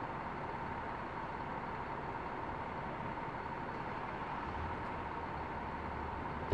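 Steady urban traffic noise with no clear single event. A low engine rumble comes in about four and a half seconds in, and a thin steady tone sits underneath.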